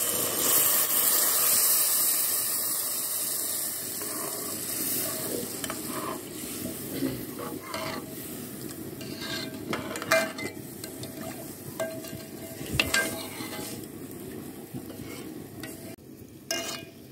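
Milk poured into a hot steel pot of vermicelli browned in oil: it sizzles loudly at first, and the sizzle dies down over the first few seconds. A steel ladle then stirs and scrapes through the milk, with scattered clinks against the pot.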